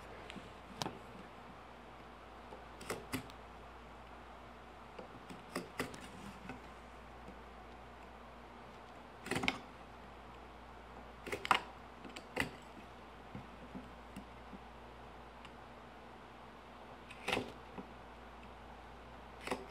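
Scattered light clicks and taps of hand marking tools: a steel rule, a small square and marking gauges set down and shifted against wooden lattice bars while lines are scribed. About a dozen short sharp clicks, the loudest two about nine and eleven seconds in.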